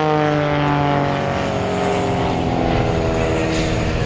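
Christen Eagle aerobatic biplane's piston engine and two-bladed propeller droning loudly, the pitch sliding slowly downward.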